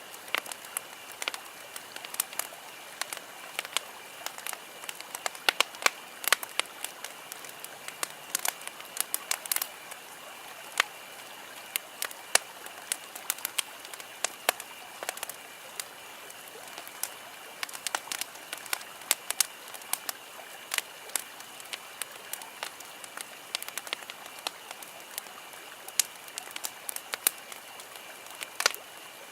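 Campfire crackling: burning wood snapping and popping irregularly, several pops a second at times, over a steady hiss.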